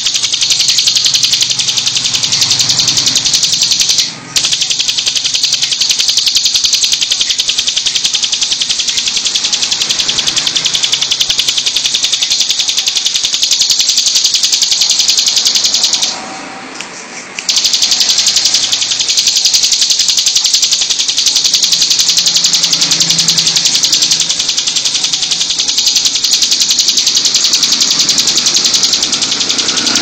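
Bar-winged prinia (ciblek) singing a high, very rapid buzzing trill almost without pause. The trill breaks off briefly about four seconds in and for about a second around sixteen seconds in.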